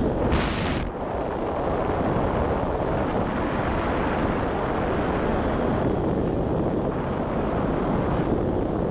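Wind buffeting an action camera's microphone during a tandem parachute descent under an open canopy: a steady, loud rush of air. A brief sharper hiss about half a second in.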